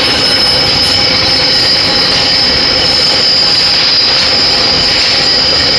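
Lathe cutting tool turning a steel shaft, metal on metal, a steady loud high-pitched squeal over a dense rushing noise.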